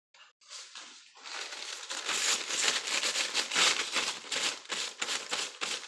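Crinkling, rustling handling noise close to the microphone, starting faint and building about a second in into quick, irregular strokes.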